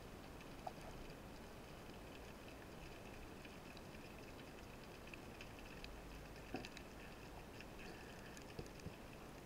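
Faint underwater ambience picked up through a camera housing: a steady low hiss with scattered fine crackling clicks. There are a few louder sharp clicks, one about a second in and three more late on, with a brief low rumble just before the second.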